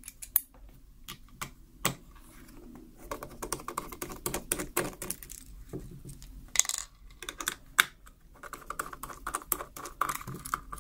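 Irregular small clicks and light metallic taps from a precision screwdriver and its T8 Torx bit being handled and set into the small screws of a handheld radio's case, with a few louder knocks among them.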